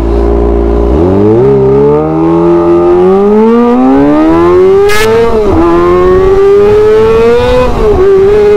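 Kawasaki ZX-25R's inline-four, fitted with an SC-Project titanium exhaust, pulling away and accelerating hard. The engine note climbs for several seconds, drops at an upshift about five and a half seconds in, climbs again and drops at a second upshift near the end, then holds steady. Really loud.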